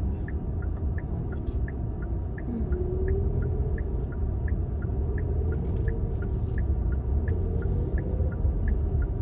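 Car cabin with a steady low road and engine rumble while driving, and a turn-signal indicator ticking evenly, about three to four clicks a second.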